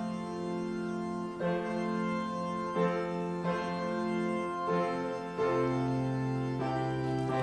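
Organ playing slow sustained chords that change every second or so.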